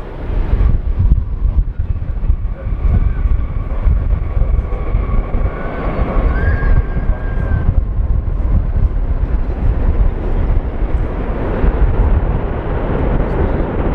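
Boeing 747-400 freighter's four jet engines rumbling loudly on landing, with wind buffeting the microphone.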